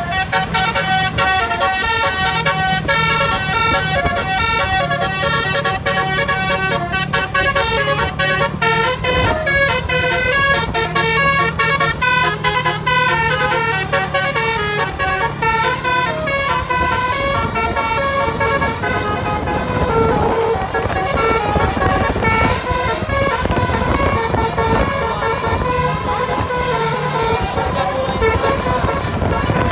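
A bus's basuri telolet horn playing a fast tune of quick stepping notes, with the bus's engine running beneath.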